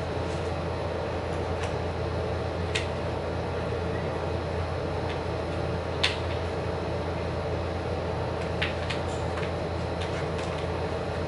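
Steady low room hum, with a few light clicks of small objects being handled on a tabletop.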